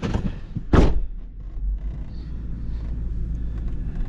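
A truck's driver door slamming shut with a heavy thunk about a second in, then the engine running with a steady low rumble, heard from inside the cab.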